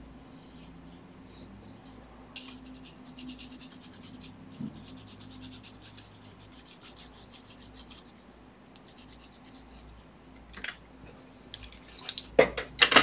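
Colored pencil scratching across a paper sketch cover in rapid short hatching strokes. Near the end come a few sharp knocks and clatter, louder than the pencil.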